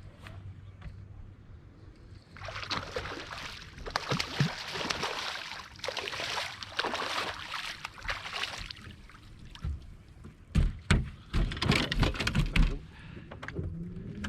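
Water splashing in several surges as a hooked fish thrashes at the surface beside the boat, then a run of loud knocks and thumps against the boat.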